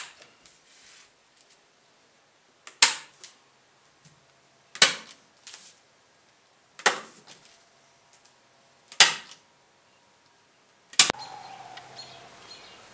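Hand-held manual staple gun firing into the edge of foam floor underlayment: a series of sharp snaps about two seconds apart, the last followed by a brief falling ring.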